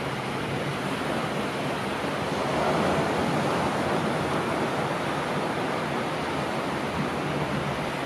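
Ocean surf: waves breaking and whitewater rushing in a steady wash of noise that swells briefly about three seconds in.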